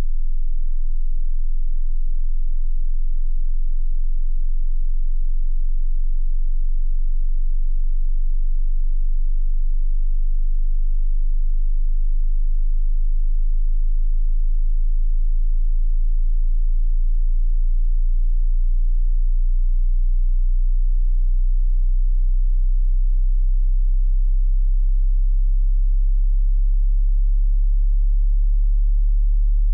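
Pure sine test tone from a hearing-test frequency check, a single very low pitch below about 50 Hz held without a break.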